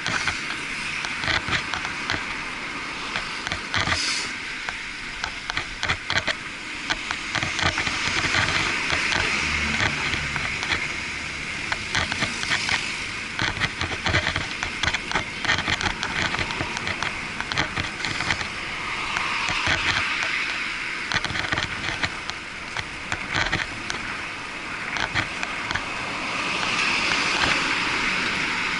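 Muffled road-traffic and riding noise heard through an action camera's waterproof housing on a moving bicycle, with a steady rush and frequent small knocks and rattles. Vehicles swell past a few times, the last near the end as a truck comes alongside.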